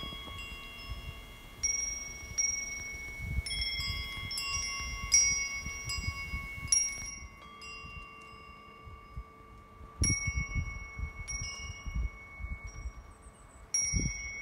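Cast bronze wind bells struck by their clappers, each strike ringing on in long steady tones. Strikes come in clusters, with a quieter lull in the middle and fresh strikes near the end.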